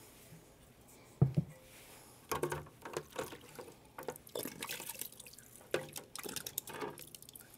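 Hands fishing siphon tubing and transfer gear out of a tub of sanitizer solution: a quiet, irregular run of splashes and drips, starting about a second in, with light knocks of the tubing against the plastic tub.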